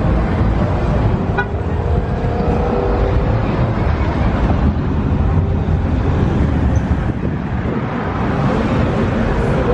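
Steady car and traffic noise: motor vehicles running around the recorder.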